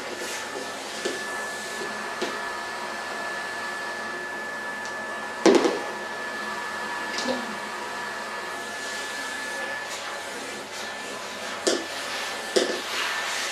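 Vacuum cleaner running steadily with a high steady whine as it is worked over a Siberian husky's coat. A few brief louder bumps or scrapes break in; the loudest comes about halfway through, and two more come near the end.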